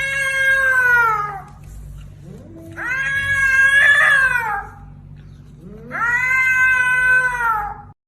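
A cat yowling three times, each a long drawn-out call that rises then falls away, over a faint steady low hum.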